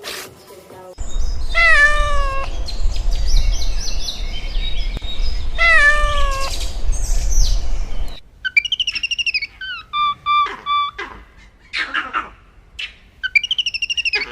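A cat meows twice, about four seconds apart, each a falling call over a steady low rumble. After an abrupt cut comes a run of short, high chirping and whistled calls.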